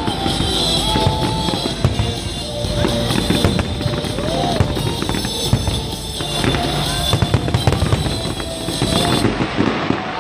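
Aerial fireworks shells bursting one after another in quick succession, with music from the pyromusical show playing underneath.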